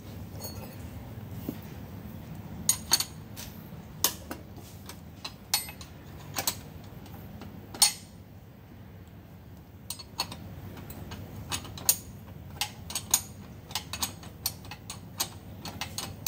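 Irregular sharp metal clicks and clinks of a wrench and hand tools being handled and set against the diesel fuel filter head, over a steady low hum.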